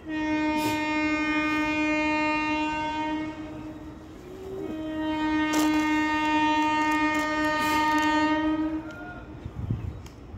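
Train horn sounding two long, steady blasts, each about three to four seconds, the second beginning about a second and a half after the first ends.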